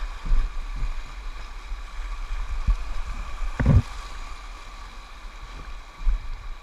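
River rapids rushing around a kayak, with several short dull thumps, the loudest about halfway through.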